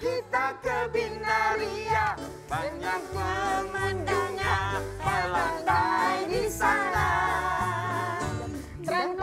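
Live band music, with bass and keyboard, under a singer's voice sung with a wavering vibrato.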